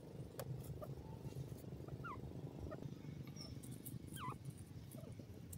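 A few faint, short, falling call notes from a grey francolin (teetar), the clearest about two seconds and four seconds in, over a low steady rumble.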